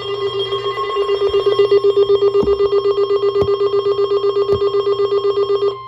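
Weather radio alert alarm: a rapidly pulsing electronic tone, about eight pulses a second, over the steady NOAA Weather Radio warning alarm tone, with three sharp clicks midway. The pulsing stops just before the end, leaving only the steady warning tone.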